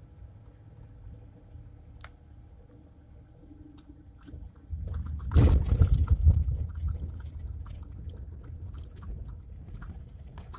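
Mercedes Sprinter van's front suspension knocking and clicking over a low rumble. The knocks set in about four and a half seconds in and are loudest for a second or so after that. This is the front-suspension noise being shown.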